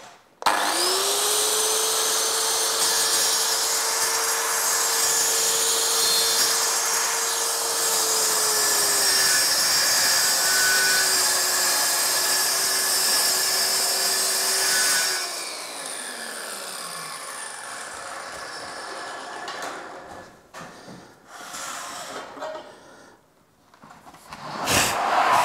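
Redstone plunge-cut circular saw starting up and cutting through a melamine panel along its guide rail, on the full-depth final cut after a shallow scoring pass; its steady whine dips a little in pitch partway through. It is switched off about 15 seconds in and spins down, followed by light handling noises and a louder scrape-and-knock near the end.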